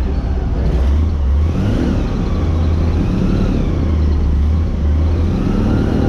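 Airboat engine and propeller running steadily and loudly, with the pitch rising and falling slightly as the throttle changes. A low rumble under it comes and goes.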